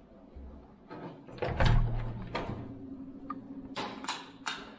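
A wall light switch clicked and a wooden bathroom door with a metal knob worked open: a series of clicks and knocks, the loudest a heavy knock about one and a half seconds in, then three sharp clicks near the end. A low steady hum starts about halfway through.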